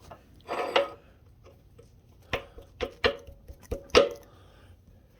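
Steel parts knocking together with a short metallic ring after each hit: a brief scraping rattle, then about five sharp knocks from about two seconds in, as a bolt is worked into a tight hole in the steel thumb bracket.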